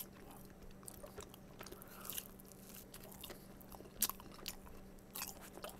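A person chewing and biting soft cheesy bread, heard as faint scattered mouth clicks close to a headset microphone, the sharpest about four seconds in. A faint steady low hum runs underneath.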